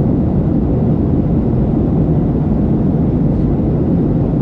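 Steady cabin noise of a Boeing 737-700 in flight, heard from a window seat just aft of the wing: the CFM56-7B engines and the airflow make an even, low-pitched rush with no changes.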